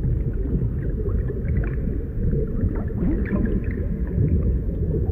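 Low, steady underwater rumble with scattered faint bubbling gurgles: a deep-sea ambience sound effect for an undersea scene.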